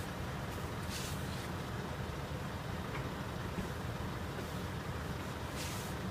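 Diesel engines of parked coaches left idling, a steady low rumble, with a few short hisses of air about a second in and again near the end.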